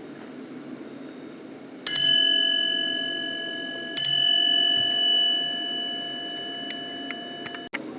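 The bell of a ship's bell clock, converted from an American 8-day time and strike movement, struck twice by its hammer about two seconds apart. Each stroke rings on and slowly dies away, and the ringing cuts off suddenly near the end.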